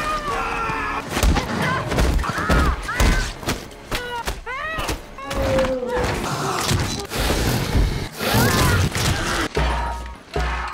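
Horror film sound mix: repeated heavy thuds and crashes with short strained cries and gasps, over a low rumble.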